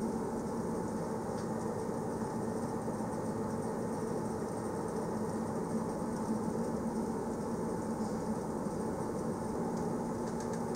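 A passenger train running steadily: continuous running noise with a low, steady hum, and a few faint ticks near the end.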